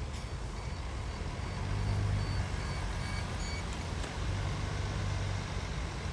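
Heavy diesel earthmoving machinery running with a deep, steady rumble that swells twice under load. Faint, evenly spaced reversing-alarm beeps sound through the first half.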